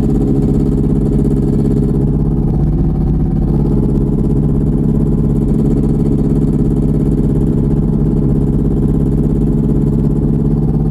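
Light aircraft's piston engine and propeller running steadily at low power, an even drone with no change in pitch, picked up by a lav mic inside the pilot's helmet.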